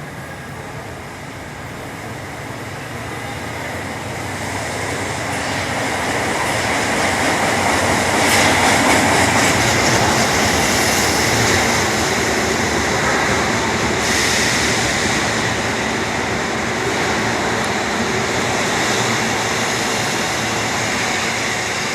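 Osaka Metro Tanimachi Line subway train running at a station. Its rolling noise builds over the first eight seconds or so and then holds steady and loud.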